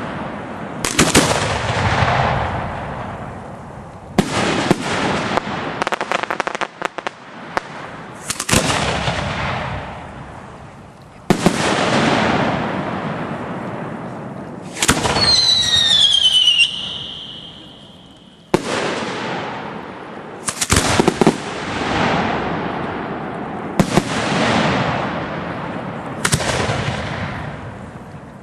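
Aerial fireworks shells bursting every two to three seconds, each a sharp bang followed by a long rolling echo. A rapid run of crackling pops comes about five seconds in, and a falling whistle lasting nearly two seconds comes about halfway through.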